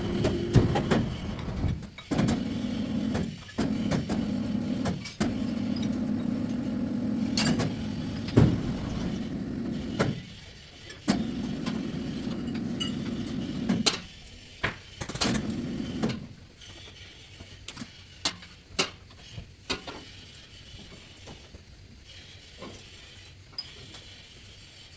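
A vehicle's engine running steadily, with sharp metal knocks and clanks; the engine drops away about sixteen seconds in, leaving scattered knocks.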